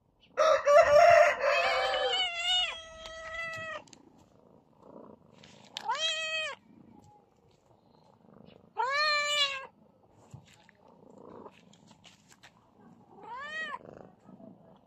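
A cat meowing. One long, loud, drawn-out meow opens, harsh at first and then held on a steady pitch, followed by three shorter meows a few seconds apart, each rising and then falling in pitch.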